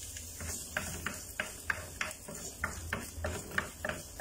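Garlic being stirred in a little hot oil in a frying pan: short clicks about three times a second as the utensil moves in the pan, over a faint sizzle.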